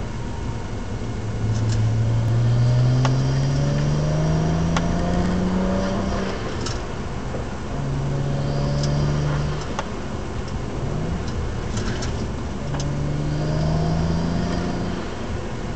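BMW 135i's N54 twin-turbo straight-six engine pulling through the gears. Its note climbs steadily in pitch for about five seconds, then drops and climbs again several times between gear changes and corners, with occasional sharp ticks.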